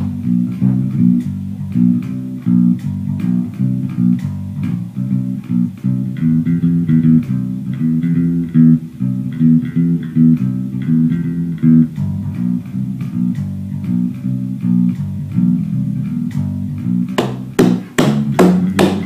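Rock band instrumental intro led by a repeating bass guitar line with guitar over it, and several sharp hits near the end.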